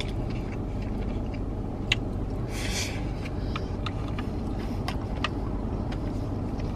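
Steady low rumble of idling car engines and street traffic heard from inside a parked car, with small clicks of chewing and chopsticks against a plastic bowl, and a brief hiss about two and a half seconds in.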